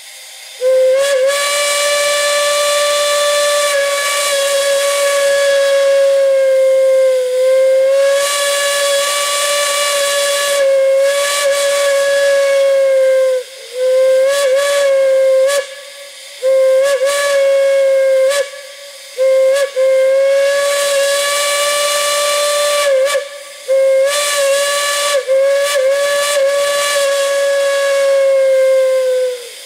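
Steam whistle sounding one steady note, with steam hissing through it. It opens with a long blast of about thirteen seconds, then gives four shorter blasts separated by brief breaks, the pitch wavering slightly as each blast starts.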